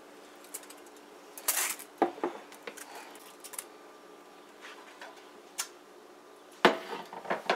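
Metal bundt pan and foil-covered plate handled as a flan cake is flipped and the pan lifted off. A short scrape about a second and a half in, a few scattered knocks, and a louder cluster of clattering knocks near the end.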